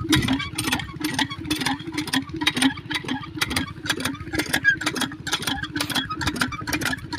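Small single-cylinder hopper-cooled diesel engine driving a water pump, running at idle with a regular clatter a little more than twice a second.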